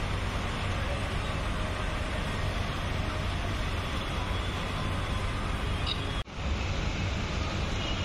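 Steady rainfall, a dense even hiss, with a brief dropout about six seconds in where the recording cuts.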